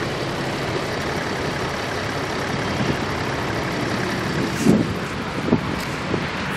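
Steady low engine rumble, with a few short knocks about two thirds of the way through.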